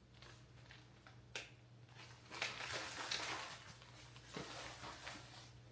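Faint paper rustling and handling noises as a greeting card is picked up, with a light click about a second and a half in, over a steady low room hum.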